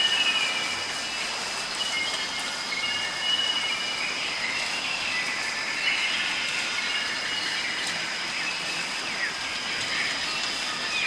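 Steady rain, with short high-pitched chirping tones scattered over it and a faint constant high tone.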